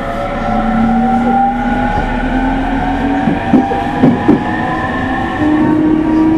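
Running sound under the floor of a JR E231-series motor car, heard from inside the car as it accelerates: the traction inverter's whine climbs in pitch in steps over the rumble of the wheels on the rails. Three short, sharp, loud sounds come a little past halfway.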